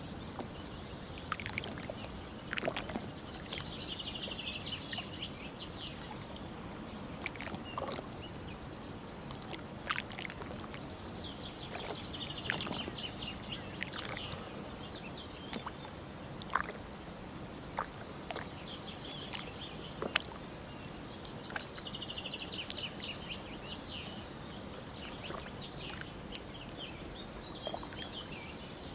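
Danube River water lapping and sloshing along the bank under a steady low rumble, with scattered sharp knocks. Birds chirp in quick high trills three times.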